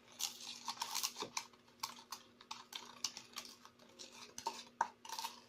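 A small spoon stirring glue mixture in a container, with irregular quick clicks and taps as it knocks against the sides while the baking soda solution is mixed into the glue to make slime.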